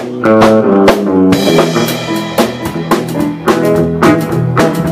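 Live country band playing an instrumental intro: drum kit hits with bass and melodic instrument notes, no singing yet.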